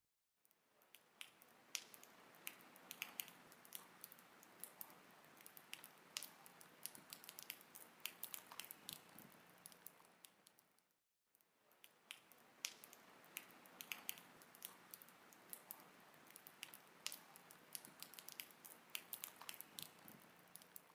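Faint rain: a soft hiss dotted with many sharp ticks of drops, fading out briefly about halfway through and then back in.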